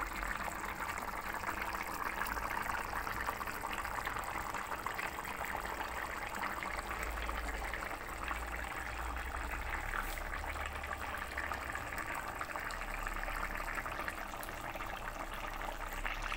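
Thin broccoli-and-potato curry gravy boiling hard in a pan: a steady, dense bubbling and popping of the liquid.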